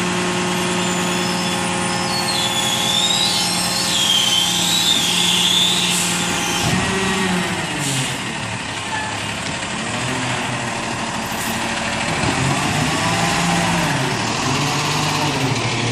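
Diesel engine of a Loadmaster rear-loader garbage truck, running steadily at first and then, from about seven seconds in, revving up and down several times as the truck pulls forward along the street. A high wavering squeal is heard about three to six seconds in, along with a few short clanks.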